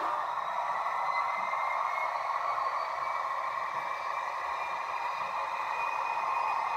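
H0 scale model trains running on the layout: a steady rolling hiss of wheels on track, with a faint motor whine that slowly rises in pitch.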